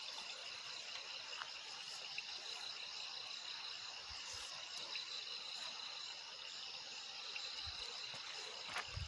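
Steady high chorus of insects, several trilling pitches held together without a break, with a few faint knocks.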